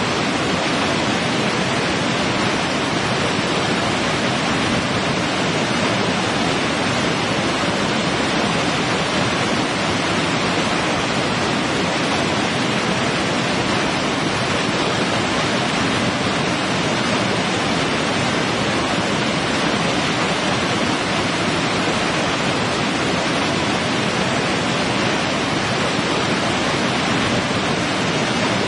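Tall multi-tiered waterfall cascading over rock: a steady, unbroken rush of falling water.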